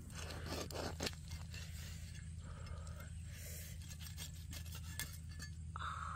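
A cleaver scraping and crunching through crisp roasted crocodile skin and meat, with a few sharp clicks, over a steady low hum.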